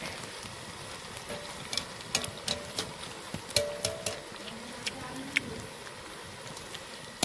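Cauliflower pakoras sizzling steadily in hot oil in an iron kadai. In the middle comes a run of about ten clinks and scrapes as a wire mesh skimmer stirs and lifts them against the pan, and a few of the clinks ring briefly.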